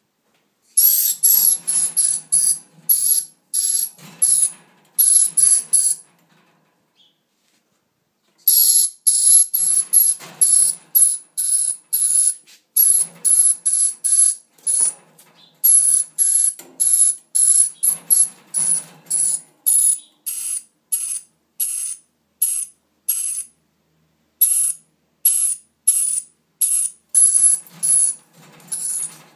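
Dusky lory screeching: long runs of short, shrill, harsh calls, about three a second, with one break of a couple of seconds about six seconds in.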